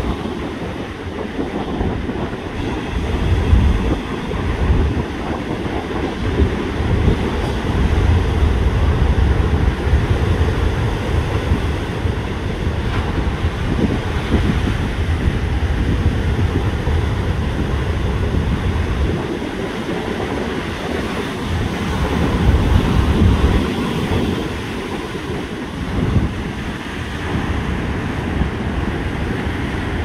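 Heavy, rough sea surf breaking and washing, stirred up ahead of Typhoon Hinnamnor, with gusty wind buffeting the microphone as a low rumble that swells and eases and is strongest in the middle stretch.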